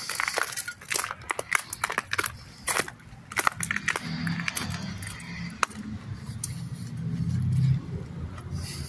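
Footsteps crunching and crackling on a gritty concrete sidewalk, a quick run of sharp steps over the first few seconds. In the second half a low, steady rumble builds and grows louder toward the end.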